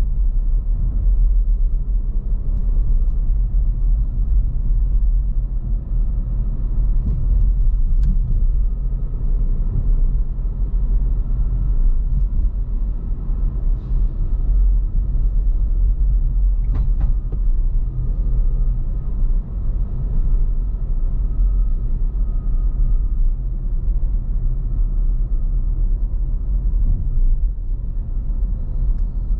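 Steady low rumble of a car being driven: road and engine noise, with a faint steady whine above it.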